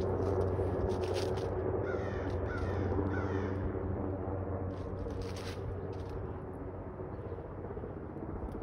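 Low-flying helicopter running overhead, a steady drone that gets slightly quieter towards the end. A crow caws three times over it, about two to three seconds in. Short rustles of dry leaves are heard now and then.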